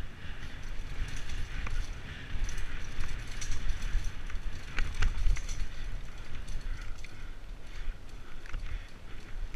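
Mountain bike riding over dirt forest singletrack: tyres rolling and crunching over the ground, the bike rattling and clicking over bumps, with a low wind rumble on the microphone. The sharpest knocks come about a second and a half in and about five seconds in.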